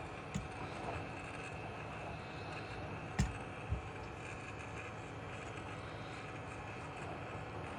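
Hot air rework station blowing steadily on low airflow, with three light knocks: one near the start and two close together a little after three seconds in.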